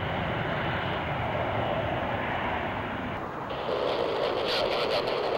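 Jet engines of a three-engine business jet running at takeoff power as it climbs out, a steady broad roar. About three seconds in the sound changes abruptly to a different, higher aircraft engine sound that pulses near the end.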